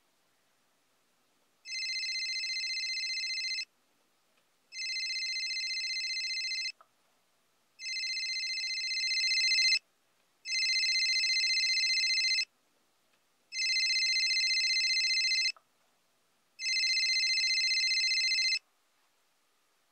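Smartphone ringing with an electronic ringtone: six rings of about two seconds each, spaced about a second apart. The third ring grows louder toward its end.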